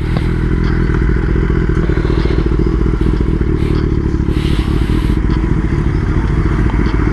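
Kawasaki ZX-10R's inline-four engine running at a steady note, heard from on the motorcycle.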